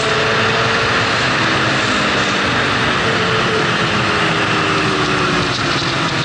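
Sport motorcycle riding along a road, heard from the bike itself: a steady rush of wind over the microphone with the engine running underneath. The engine note sinks gradually as the bike eases off.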